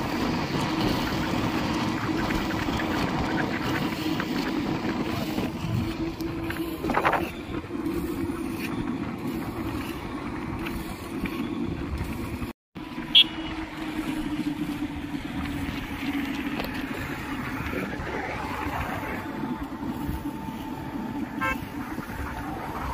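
Steady drone of a motor vehicle running on the road, with a short, loud beep about thirteen seconds in.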